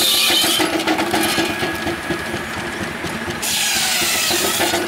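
Belt-driven circular saw of a steam-powered shingle mill cutting cedar: a steady hum with two loud cuts through the wood, one at the start and another about three and a half seconds in.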